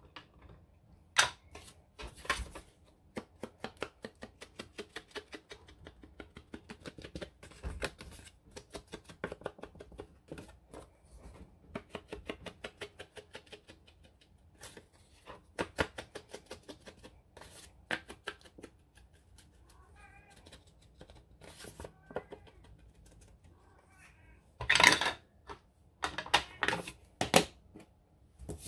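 Hand paper-crafting at a desk: a long run of quick, light tapping and scraping strokes on paper, with a few louder sharp clicks near the end.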